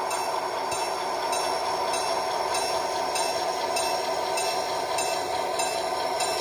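Model freight train moving slowly along layout track, with a steady running hum and light, regular clicks a little under two a second.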